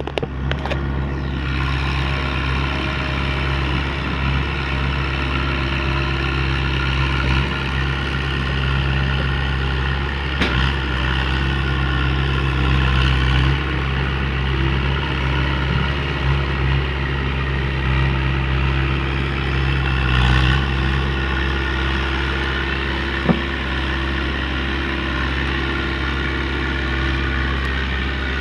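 An engine running steadily at idle: a constant low hum with a stack of steady higher tones above it. A single sharp click near the end.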